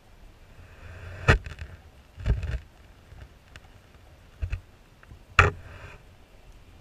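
A few sharp, muffled knocks and bumps heard underwater through a GoPro Hero 3+ in its waterproof housing: one about a second in, a double knock near the middle, a fainter one after four seconds and a strong one near the end, the loudest ones trailed by a short hiss.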